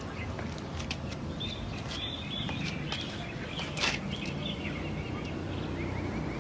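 Small birds chirping over a steady low rumble, with a few sharp clicks, the loudest about four seconds in.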